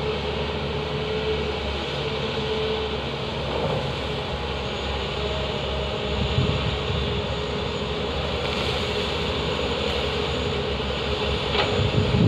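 Tata Hitachi hydraulic excavators' diesel engines working as they dig and load coal into a Volvo mining tipper: a steady drone with a faint held whine.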